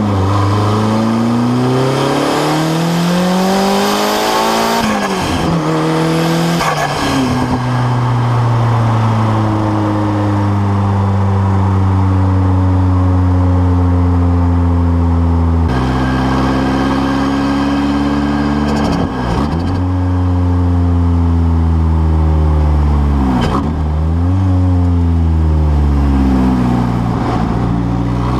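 Turbocharged Nissan SR20DET four-cylinder with blast pipes pulling through the revs and dropping off several times as the throttle is lifted or a gear is changed. At each drop the TIAL blow-off valve vents with a short burst, the "choo choo".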